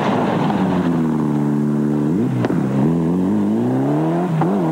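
Mitsubishi Lancer Evolution rally car's turbocharged four-cylinder engine at full stage pace. The revs fall for about two seconds, then climb hard as it accelerates, with a quick break near the middle and another near the end as it changes gear.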